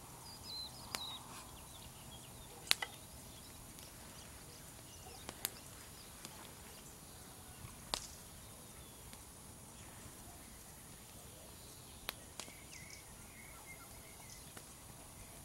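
Small wood campfire crackling quietly, with a handful of sharp isolated pops over a faint steady outdoor background. Faint short bird calls come in near the start and again near the end.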